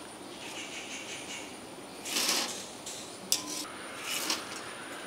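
Crisp fried maida rings clattering as they are tipped from a wire skimmer into a mesh strainer, in two short bursts about two and four seconds in with a sharp tick between, over a faint hiss of frying oil. The dry rattle ('gili gili') is the sign that the rings are fully fried and crisp.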